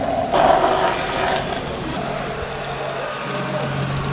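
Water from a garden hose spraying hard against a portlight and the steel hull, leak-testing the freshly sealed portlight. About halfway through a steady low hum joins the spray.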